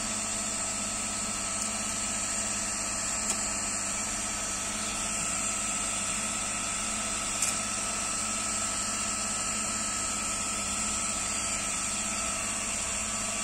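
Steady whirring hum of the diode laser engraver's cooling fans and air-assist pump running, with a light click about three seconds in and another about seven and a half seconds in.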